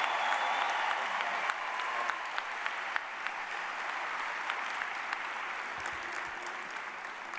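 Large crowd clapping and cheering. The applause fades gradually, leaving scattered single claps standing out near the end.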